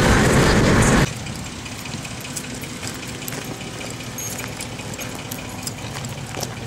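Road and engine noise inside a moving car, cutting off suddenly about a second in. It gives way to a quieter steady engine idle with scattered light clicks.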